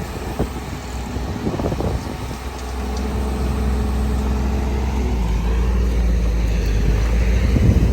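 Hydraulic excavator's diesel engine running, with a few knocks near the start; about two and a half seconds in the engine comes under load and grows louder, and a steady hydraulic whine joins it.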